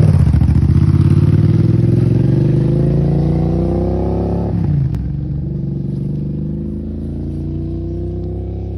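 Suzuki SV650 V-twin motorcycle engine accelerating hard through a gear with steadily rising pitch, shifting up about four and a half seconds in, then pulling through the next gear, growing fainter as the bike rides away.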